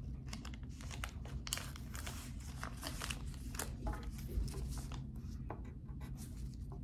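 Paper tongue-depressor wrapper crinkling as it is handled, then a pen scratching on paper, a string of short, irregular scratches and taps over a low room hum.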